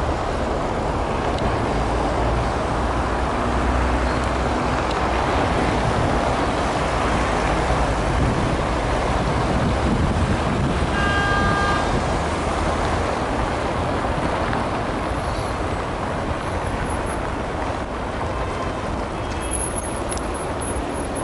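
Steady city road traffic: cars, a trolleybus and a tram moving along a snowy street. A short pitched tone sounds about halfway through.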